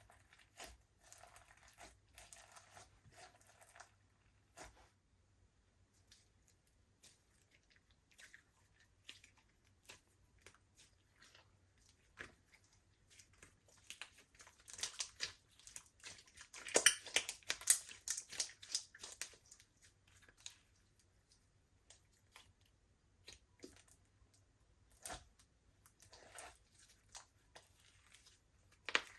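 Slime being squished and stretched by hand, giving irregular sticky crackles and small pops, busiest about halfway through.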